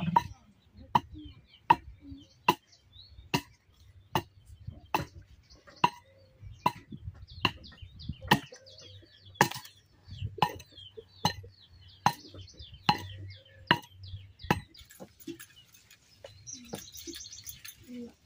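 Axe chopping a freshly cut log, a steady run of sharp blows at a little over one a second that stops about fifteen seconds in.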